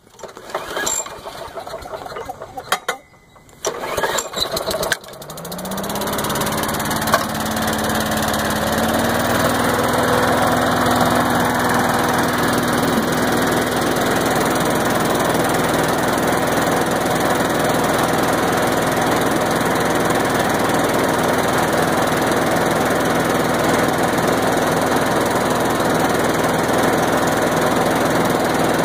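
Troy-Bilt CSV 060 chipper shredder vacuum's Briggs & Stratton engine being pull-started after a repair. After several tugs on the recoil starter it catches about five seconds in, revs up, and then runs steadily, with the shredder's rushing noise under the engine.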